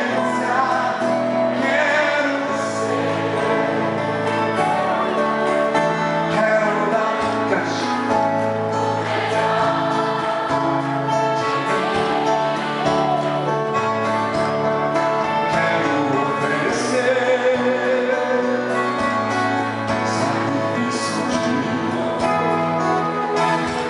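Live gospel music: singing over acoustic guitar and keyboard accompaniment, continuous throughout.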